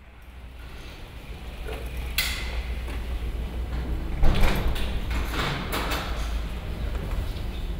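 A bicycle being wheeled along a street, with its parts clicking and rattling and footsteps, mostly between about four and six seconds in, over a steady low rumble. The sound fades in at the start.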